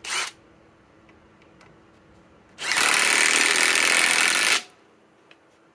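Cordless impact driver blipped briefly, then about two and a half seconds in hammering steadily for about two seconds as it drives a 4-inch TimberLOK screw into a wooden beam, stopping abruptly.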